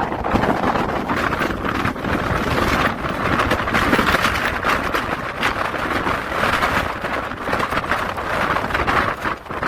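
Strong wind buffeting the microphone: a loud, rushing wind noise that swells and dips in gusts.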